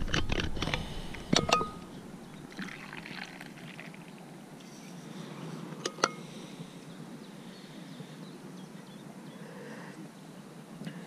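Stainless-steel vacuum flask being opened, with several metallic clicks and a short ringing clink in the first second and a half, then a drink poured into its cup about three seconds in; another single clink about six seconds in.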